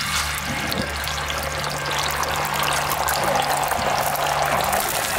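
Beaten egg ladled into hot oil in a large iron pan, setting off a loud sizzle that starts at once and grows stronger a few seconds in as the egg spreads and bubbles.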